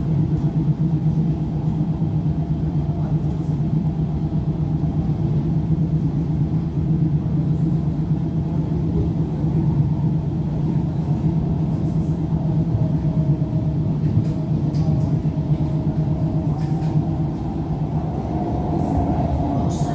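Helsinki Metro train heard from inside the carriage while running at speed: a steady rumble of wheels on rails with a constant low hum, and a few faint ticks in the second half.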